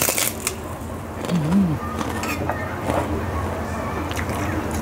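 Eating at the table: a bite into a fried vegetable fritter with a short crisp noise at the start, then chewing, a brief hummed "mm", and a few light clicks of a spoon against a china rice bowl.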